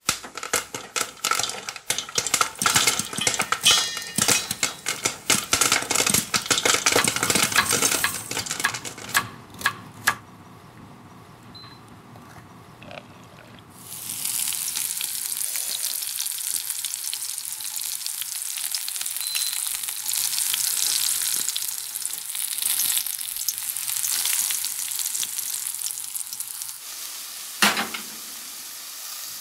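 Cooking in a stainless steel frying pan: a dense run of crackling and sharp clicks, then a quieter stretch. About halfway through, a steady high sizzle sets in abruptly. Near the end comes a single metal clunk as the pan is set on an oven rack.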